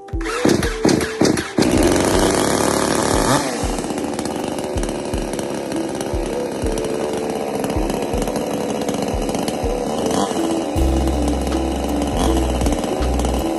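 JONSER BS5800 petrol chainsaw starting, with a few sharp strokes in the first two seconds, then running steadily. Background music with a steady beat plays under it.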